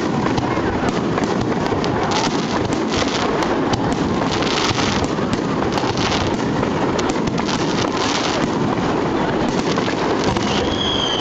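Aerial fireworks going off in a dense, continuous barrage of crackling and popping, with brighter flurries of crackle several times.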